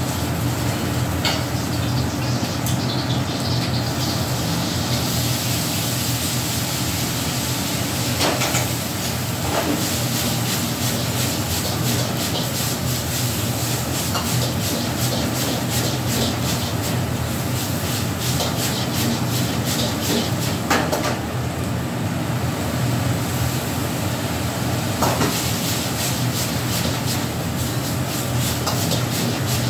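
Gas wok burner running at full flame with a steady loud rush and low hum, while food is stir-fried in the wok; the metal ladle and spatula clank against the wok a few times.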